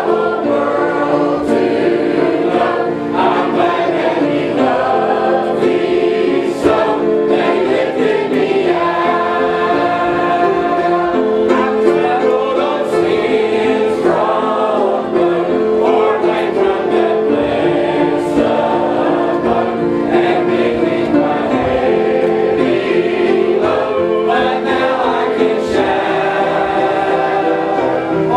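Church congregation singing a gospel hymn together, many voices holding long notes in steady time.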